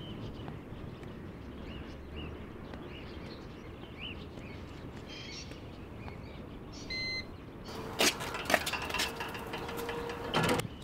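Outdoor background noise with small birds chirping, then a short electronic beep about seven seconds in. A run of loud metallic clicks and clanks follows over a steady hum as a full-height metal turnstile turns, cutting off suddenly near the end.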